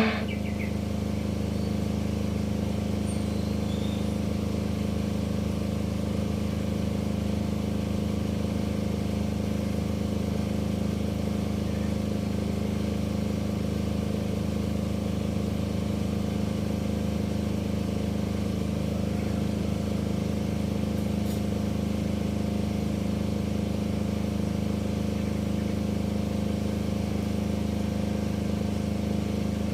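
A steady low machine hum made of several even tones, unchanging throughout, once the music has stopped.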